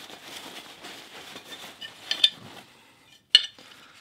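Paper towel rustling as it is unwrapped from a machined aluminium pinning tray, then light metallic clinks from the tray about two seconds in and one sharp clink a little past three seconds as it is handled.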